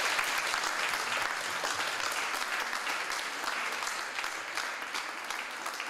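Audience and people on stage applauding, a dense steady clapping that eases off slightly toward the end.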